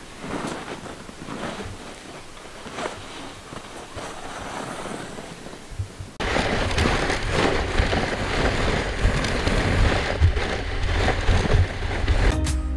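A few soft crunches in snow about once a second as the sled sets off. About six seconds in, a sudden louder stretch of wind buffeting the microphone, with a low rumble, as the camera moves down the snowy sled track. Music starts right at the end.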